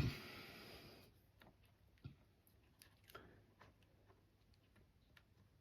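A short scrape, then scattered faint clicks and taps, one a little louder about two seconds in, from small plastic spider pots and lids being handled.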